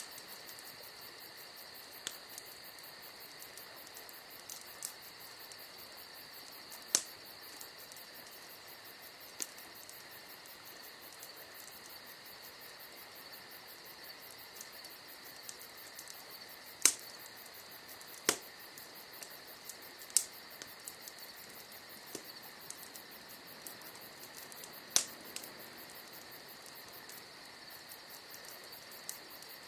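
Crickets chirping steadily, with the scattered sharp crackles and pops of burning logs in a wood campfire; about five pops stand out loudly.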